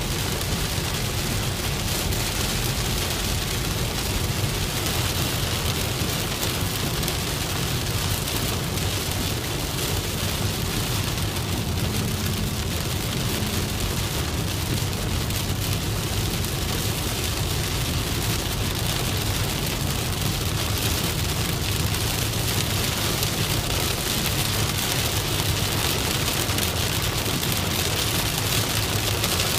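Steady rain falling on a moving car, with the low, even hum of the car driving beneath the hiss of the rain.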